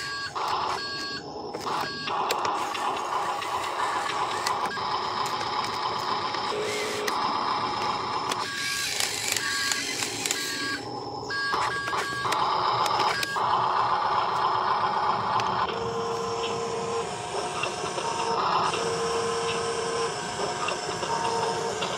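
Huina RC dump truck's electric drive motors and gearboxes whirring as it crawls through mud, with several short electronic beeps. In the second half the motor tone changes as the electric tipper ram lifts the loaded bed.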